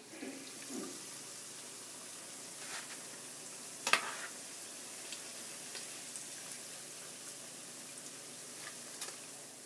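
Onion pakoras (chickpea-flour fritters) sizzling steadily as they deep-fry in oil at about 375 to 400 degrees. A sharp clink about four seconds in, with a few fainter taps, as a metal spoon turns and lifts them.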